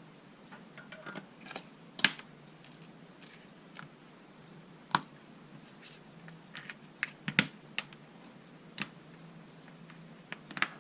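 Irregular light clicks and taps from small parts being handled, about fifteen in all, the sharpest about two seconds in and a cluster around seven and a half seconds in.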